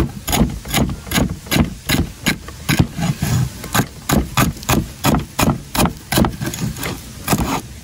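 Cleaver chopping celery stalks on a wooden chopping board: a steady run of sharp knocks of the blade on the wood, about four a second.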